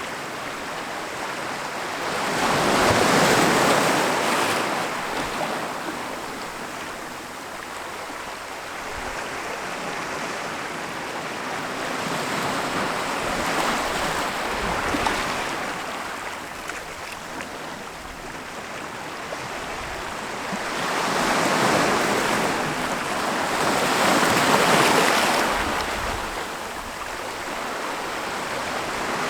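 Ocean waves breaking on a beach: a rushing hiss that swells and fades, with three big surges roughly ten seconds apart and quieter wash between them.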